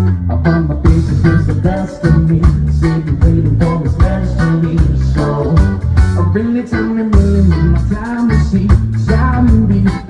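Live band playing a song: electric guitar, bass and drums with a steady beat, and a man singing lead over them.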